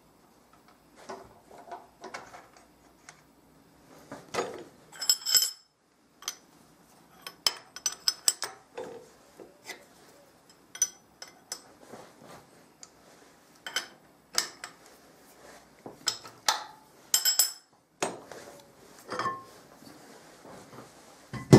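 Irregular metal clinks and knocks as a steel machine vise and tools are handled and clamped on a milling machine table while the vise is squared; some strikes ring high.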